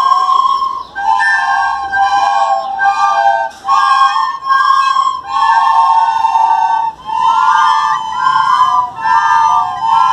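A class of children playing a melody in unison on plastic soprano recorders, in short phrases with brief breaks between them.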